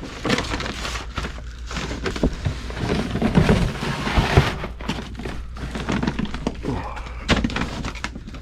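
Irregular thuds, knocks and rustling scrapes of someone moving about and handling things in a crawl space, with one sharper knock near the end, over a steady low hum.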